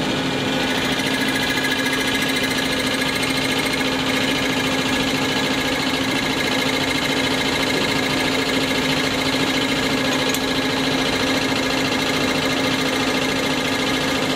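Diesel injection pump test bench running with a steady mechanical hum that does not change.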